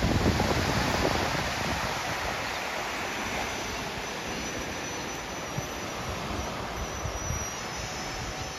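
Small sea waves breaking and washing at the shoreline at high tide, a steady hiss of surf. Wind buffets the microphone in the first second or so.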